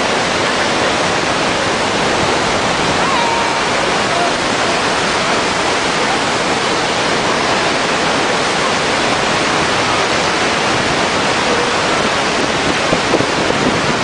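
Large waterfall rushing steadily over a rock lip: a loud, dense, unbroken roar of falling water.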